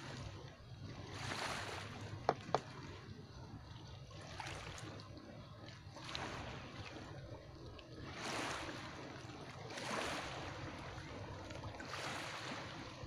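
Small waves washing and lapping in gentle swells every second or two, over a low steady rumble, with two sharp clicks a little over two seconds in.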